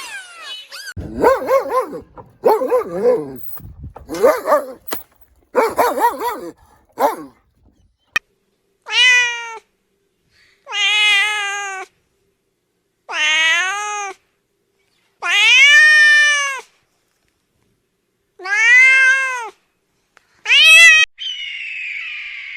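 A cat meowing: six drawn-out meows a second or two apart, each rising then falling in pitch. Before them comes a run of shorter, choppy calls.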